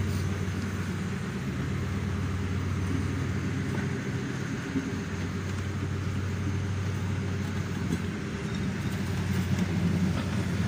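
Old PKP passenger coaches rolling slowly past at trackside, with a steady low hum and the even noise of the moving train.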